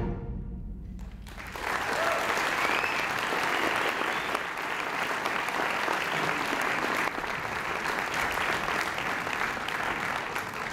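Audience applauding, starting about a second and a half in as a concert band's final chord dies away in the hall.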